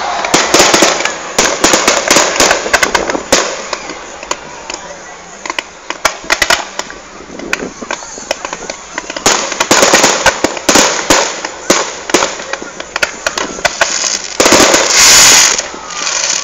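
Fireworks display: aerial shells bursting with many sharp bangs and rapid crackling. The bursts come in dense volleys at the start and around ten seconds in, and there is a loud, longer crackling burst near the end.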